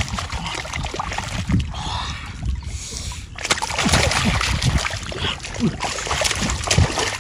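Water splashing and sloshing in irregular surges, with dull low knocks mixed in.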